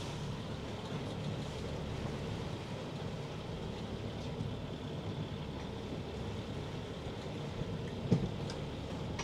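Steady low rumble with a light hiss on a catamaran's deck, and one sharp knock about eight seconds in.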